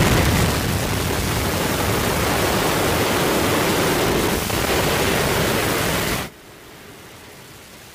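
A demolished stadium grandstand collapsing just after the implosion blast: a loud, steady rumble of falling debris. It drops off sharply about six seconds in to a much quieter hiss.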